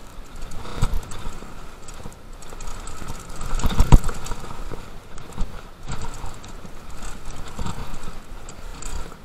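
Downhill mountain bike, a Trek Session, rattling over rough bike-park trail: chain slap and clattering frame and suspension over tyre noise, with a heavy thump about four seconds in.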